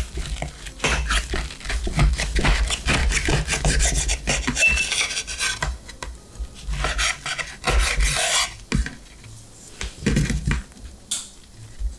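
A knife sawing back and forth through a crisp, pan-toasted sandwich, the toasted crust rasping with each stroke. The sawing stops about two-thirds of the way in, leaving only a few light handling sounds.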